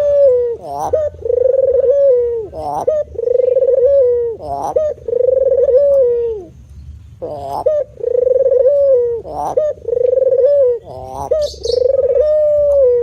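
Spotted dove (tekukur) cooing: a run of repeated calls, each a short rising note followed by a held low coo, about one a second, with a short break around the middle.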